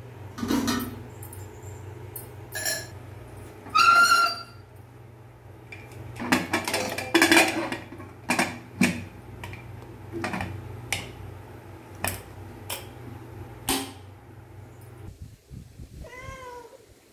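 Aluminium pressure cooker being handled: a string of metal clinks and clatters, with one short ringing clang about four seconds in, as the cooker is stirred and its lid is closed. Near the end a cat meows once.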